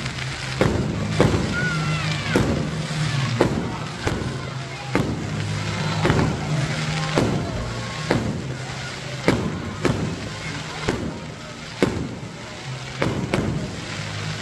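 Aerial fireworks going off in steady succession: sharp bangs and crackling bursts about once a second.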